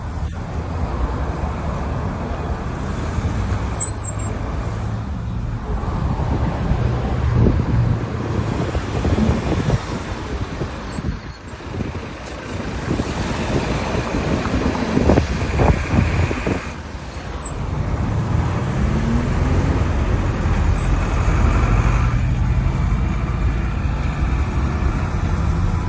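Porsche Cayenne 958 moving with a steady low rumble of road and engine noise, its brake pads giving short high-pitched squeaks about five times.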